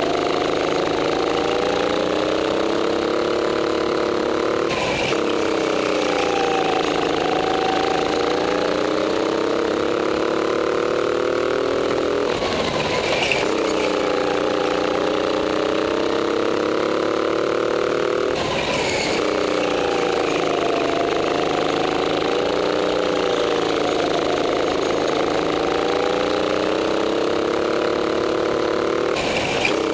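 Racing go-kart's small engine running hard. Its pitch sags and climbs again about every six seconds as the throttle is lifted and reapplied through the turns. A short rough burst of noise comes with each dip.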